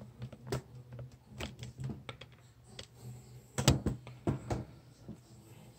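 Irregular small clicks and knocks of handling: a camera being picked up and repositioned close over a soldering bench, with a sharper cluster of knocks past the middle. A faint steady low hum runs underneath.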